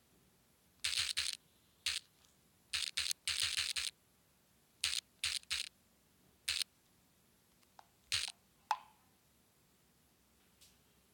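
Handling noise: a string of short, scratchy rubs and taps at irregular intervals, with a sharp click near the end.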